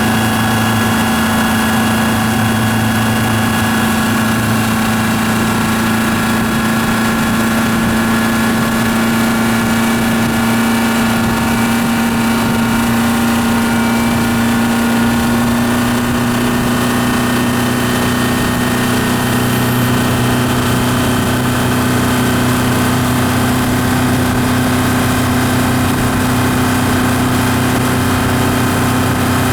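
Yamaha F150 150 hp four-stroke inline-four outboard engine running steadily, its pitch creeping slightly higher in the second half.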